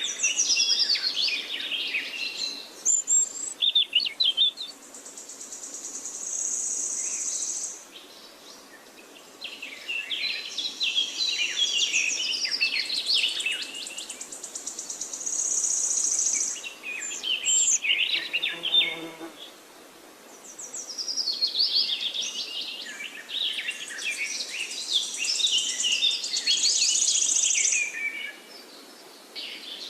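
Forest birdsong: several birds singing bright chirping and warbling phrases in bursts that come and go every few seconds, with a high steady insect buzz in between.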